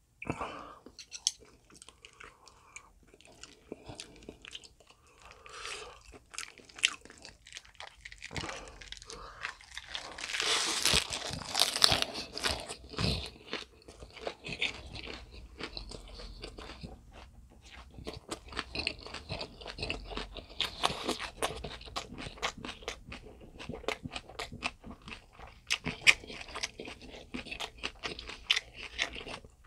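Close-miked crunching and chewing of a wrap of raw napa cabbage around spicy stir-fried pork and green chili, bitten into at the start. The crunching is irregular and loudest from about ten to thirteen seconds in.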